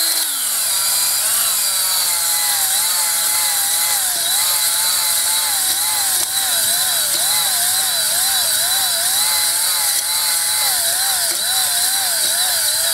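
Drill spinning a spring-loaded stone cylinder hone in the oiled bore of a cast-iron cylinder jug, the stones scraping the cylinder wall as the hone is stroked up and down. Its whine wavers up and down in pitch about twice a second.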